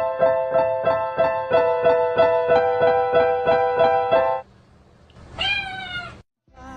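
A plinking keyboard tune with evenly spaced notes, about four a second, stops suddenly a little over four seconds in; then a cat meows once, briefly, near the end.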